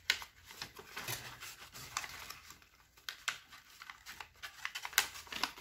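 Stiff kraft paper crinkling and crackling as it is folded and pressed into a bag bottom, in irregular snaps and rustles.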